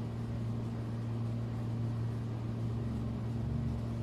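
A steady low hum at one pitch with a fainter tone an octave above it, unchanging throughout.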